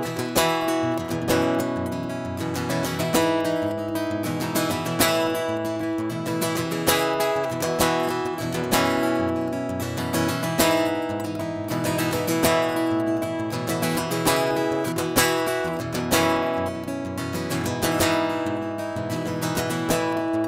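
Acoustic guitar strummed in a steady rhythm, chords ringing without singing.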